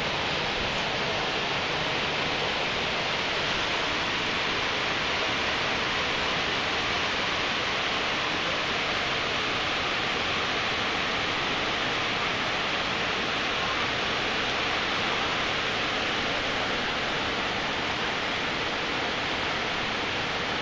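Steady, even rushing hiss of floodwater.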